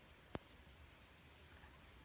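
Near silence with a faint steady hiss, broken once by a single sharp click about a third of a second in.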